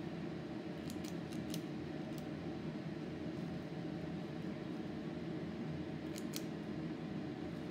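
Metal spring-loaded portion scoop clicking as its squeeze-handle release sweeps out cream cheese filling onto wonton wrappers: a quick run of four clicks about a second in, and two more a little after six seconds, over a steady low hum.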